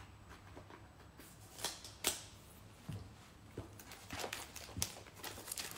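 A cardboard smartphone box being cut open with a small cutting tool and handled: faint scrapes with half a dozen short, sharp ticks and rustles spread over a few seconds.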